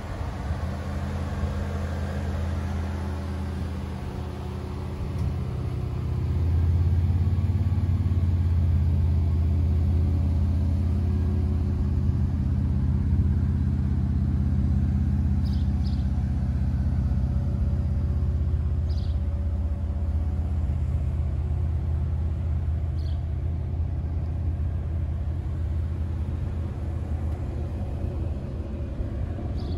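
2005 Chrysler Cirrus convertible's engine idling steadily, a low even drone that grows louder about six seconds in.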